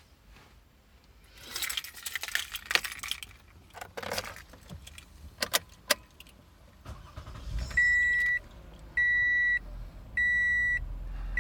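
Car keys jangling with a few sharp clicks, then the minivan's engine starts a little past halfway. A dashboard warning chime follows, a steady high beep repeating about once a second, three times.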